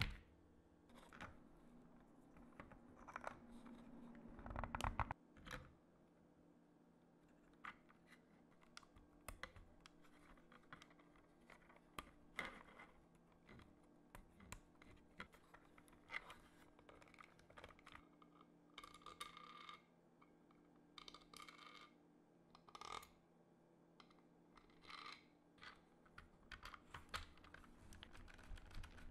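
Faint, irregular clicks, taps and rustles of hands handling 3D-printed plastic parts and plugging wire connectors together, with a louder knock about four to five seconds in.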